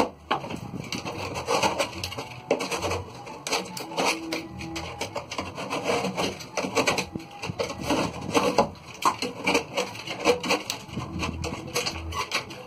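Irregular scraping and rubbing strokes of a hand tool worked along the edge of a drywall shelf.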